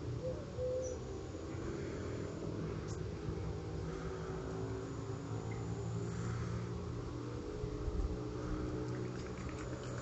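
Outdoor ambience dominated by a steady low mechanical hum, like distant traffic or machinery running, with a few faint bird calls near the start.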